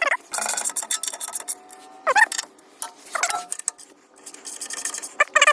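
Ratchet with a 12 mm socket clicking in quick runs as skid plate bolts are run in and snugged by hand. A few short squeaky sounds come between the runs.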